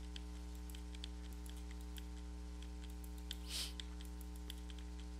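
Faint, irregular clicking of a computer mouse over a steady low hum, with a brief hiss a little past halfway.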